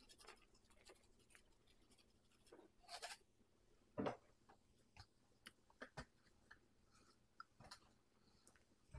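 Faint rattle of crushed red pepper flakes shaken from a plastic spice shaker jar over crab legs for the first couple of seconds, then a few soft scattered clicks and knocks of handling.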